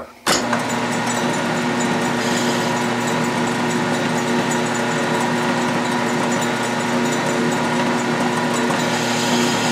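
Atlas 12-inch metal lathe switched on about a third of a second in, then running steadily with an even hum and several steady tones.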